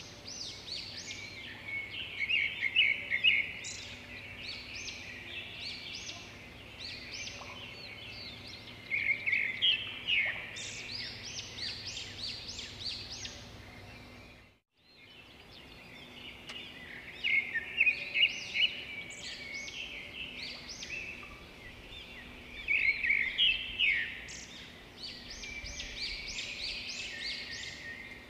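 Many small birds chirping, in clusters of quick high calls over a faint steady background hiss. The sound dips away to silence for a moment about halfway through and comes back.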